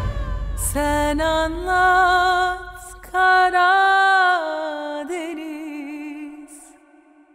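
A lone singing voice from the series' theme song, holding long notes with a wavering vibrato and almost no accompaniment. It fades out toward the end.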